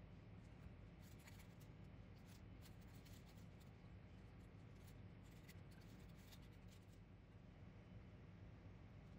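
Faint crinkling and rustling from a plastic piping bag being squeezed while hands press soft burger buns, in short bursts twice, over a low steady hum.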